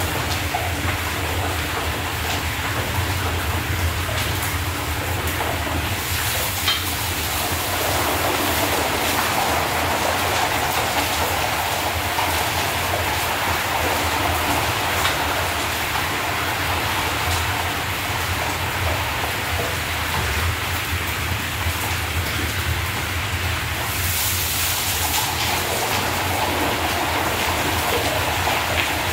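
Chunks of meat sizzling in hot oil in a large cast-iron kazan, the first frying stage of plov, as a steady loud hiss over a low hum. The sizzle grows louder about six seconds in, as more meat goes into the oil.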